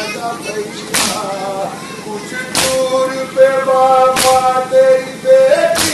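Mourners beating their chests in unison (matam), a sharp communal slap about every second and a half, four in all. Under the slaps a male voice chants a noha lament with long held notes.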